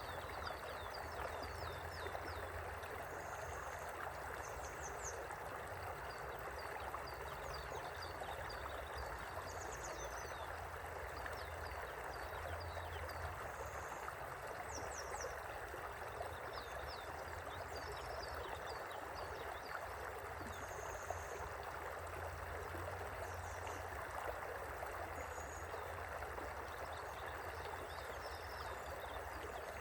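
River water flowing steadily, an even rushing sound with no change, with faint short high chirps scattered throughout.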